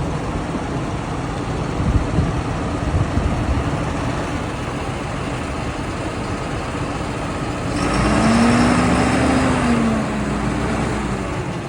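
John Deere tractor engine running as it is driven onto a low loader trailer, with the revs rising then easing off for about two seconds around eight seconds in.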